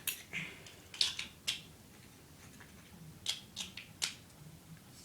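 Short, sharp clicks and snaps of small hard plastic parts being handled, in two quick clusters near the start and about three seconds in.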